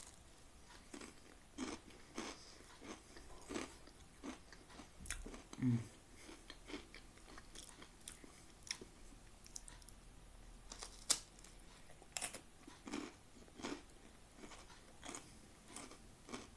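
Swedish crispbread (knäckebröd) with ham and soft cheese being bitten and chewed: irregular dry crunches, the sharpest about eleven seconds in.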